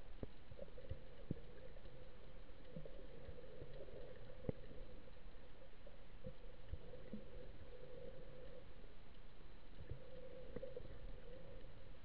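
Muffled underwater sound picked up by a camera submerged in the sea: a steady low hum of water noise with scattered faint clicks and ticks, one sharper click about four and a half seconds in.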